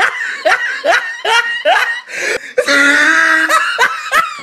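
A high-pitched voice laughing loudly in a run of short, falling "ha" syllables, about two or three a second, broken by a drawn-out held note a little past the middle.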